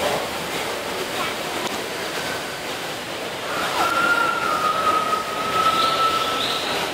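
Steady rush of falling water. In the second half a long, slightly falling whistle-like tone is held for about three seconds, with two short rising chirps near the end.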